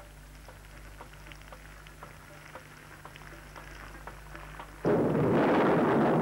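Faint scattered ticks, then about five seconds in a loud, steady rush of heavy rain comes in suddenly and keeps going.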